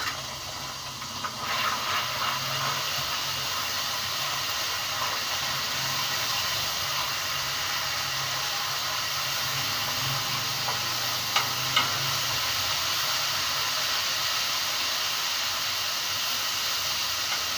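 Garlic paste sizzling in hot oil in a kadhai, a steady hiss that starts suddenly about a second and a half in. Two sharp taps, a spoon against the pan, come about two-thirds of the way in.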